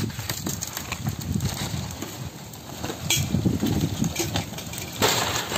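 Dried palm fronds burning in an open fire, crackling and popping over a low rumble, with a louder rush of noise about five seconds in.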